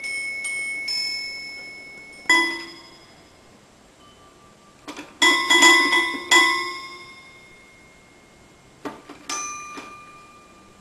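A wall-mounted brass bell, just pawed by a cat, rings and fades away. Then comes a toy grand piano played by a cat's paw: one note about two seconds in, a quick cluster of ringing notes around five to six seconds, and a few more near the end.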